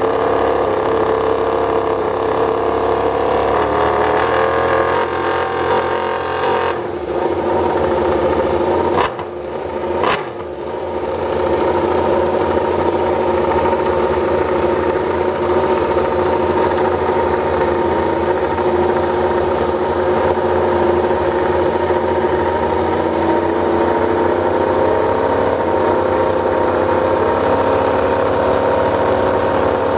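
Movistar Yamaha YZR-M1 MotoGP bike's inline-four engine running on paddock stands, warming up. The sound dips sharply twice about nine and ten seconds in, then the engine settles into steady running.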